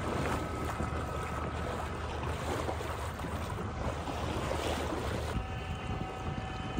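Small dinghy under way across calm water: a steady low motor drone with water rushing and wind buffeting the microphone. The sound changes slightly about five seconds in.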